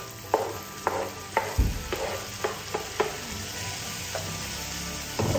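Chopped tomatoes being scraped off a wooden cutting board with a wooden spoon into a skillet of okra frying in olive oil: sharp taps about twice a second over a steady sizzle, then the spoon stirring the pan, with a few knocks near the end.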